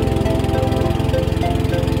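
A river boat's engine running steadily with rapid, even pulses, under background music with a melody.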